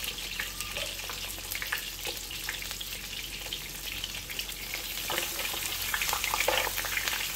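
Oil sizzling and crackling in a frying pan as a stuffed squid roll fries. About five seconds in, a second stuffed squid roll is laid in the pan and the sizzle grows a little louder.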